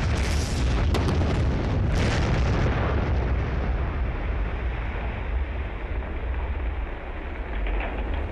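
Large rock-blasting explosion on a mountainside: a deep boom and long low rumble, with sharp cracks about one and two seconds in. The higher part of the sound dies away after about three seconds while the low rumble goes on.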